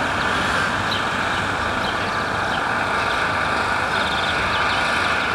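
Steady street traffic noise from cars on a town road, even in level with no single pass-by standing out.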